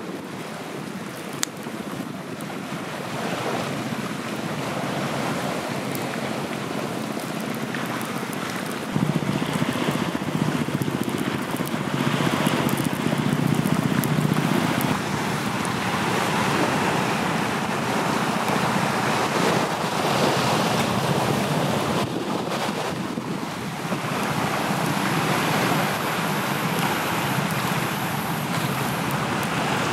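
Steady rushing of surf and wind on the microphone, with a wood campfire burning and giving an occasional crackle. The rushing gets louder and fuller about nine seconds in.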